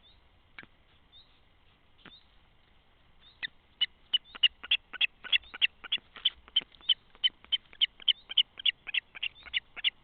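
A landed common carp out of water, gasping and flapping: two single sharp clicks, then from about a third of the way in a rapid, steady run of sharp clicks, about three a second.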